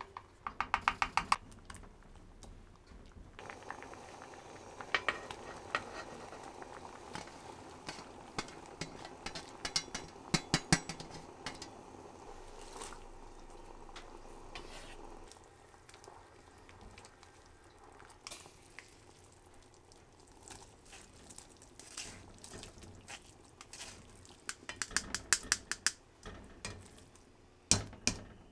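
A wooden spoon stirring and knocking against an enamelled cast-iron pot of soup, in several bursts of quick clicks, with a faint steady simmer between them and a louder knock near the end.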